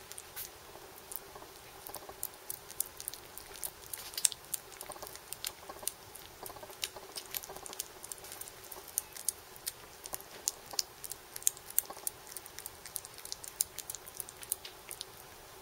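Small kitten eating soft weaning food: irregular quick clicks and smacks of lapping and chewing, several a second, over a faint steady hum.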